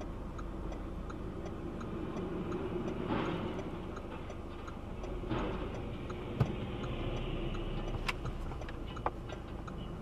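Dashcam recording of road traffic: a steady engine and road rumble as a semi-truck with an empty trailer turns across the road, with a faint regular ticking of about three ticks a second. There are two swells of noise a few seconds in and two sharp knocks late on.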